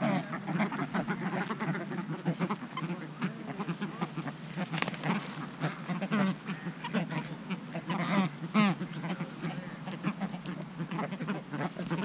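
A flock of American white ibises calling at close range: a steady stream of short, overlapping honking grunts, a few louder ones near the end.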